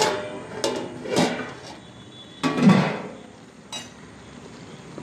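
Metal lid being handled on a large metal cooking pot: a few clanks with short metallic ringing, the loudest about two and a half seconds in, and a light click near the end.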